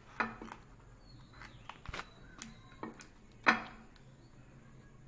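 Handling noise from a banana-leaf parcel being tied with thread and turned on a ceramic plate: a few sharp taps and knocks, the loudest about a quarter second in and again about three and a half seconds in, with lighter clicks between.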